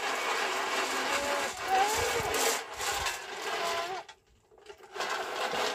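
Maize kernels rattling and scraping inside a lidded sheet-metal roasting box as it is shaken over a wood fire, with a brief stop about four seconds in.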